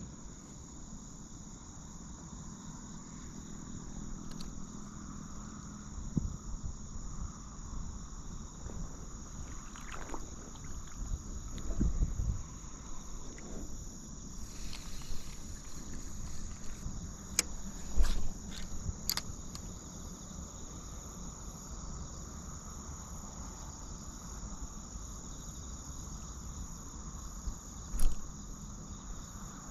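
Insects trilling steadily, a continuous high-pitched chorus. A few sharp clicks and low knocks come through it, the loudest about eighteen seconds in and again near the end.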